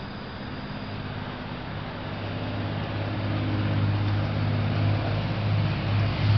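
A motor vehicle's engine running with a low, steady hum that grows steadily louder over several seconds.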